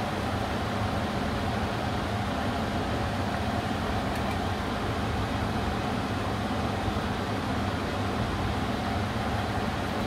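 Pot of vegetables at a rolling boil on an induction hob: a steady bubbling rush with a low hum under it.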